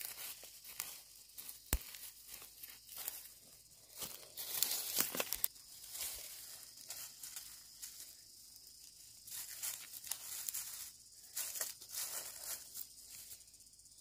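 Gloved hand pulling weeds and scraping through dry grass stalks and soil: irregular crackling rustles, tearing and scratches, with one sharp click a little under two seconds in.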